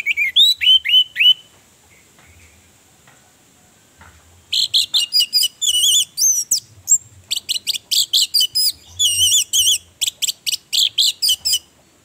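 Orange-headed thrush singing loudly: a quick run of about six slurred whistles in the first second and a half, then, after a pause, a long rapid stream of varied high notes and trills from about four and a half seconds in, stopping just before the end.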